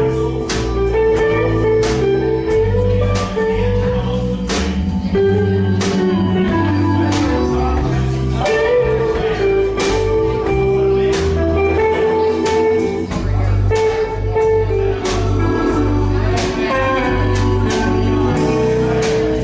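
Live band playing an instrumental passage: acoustic guitar strummed over drums and a steady low bass line.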